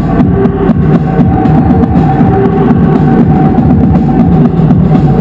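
Loud live noise music: a dense, distorted wall of sound with fast, continuous drumming under steady droning tones, without a break.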